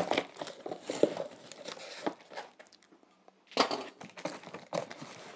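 Cardboard box being cut open with a knife: irregular scraping and crinkling of cardboard, a short pause past halfway, then a louder rustle.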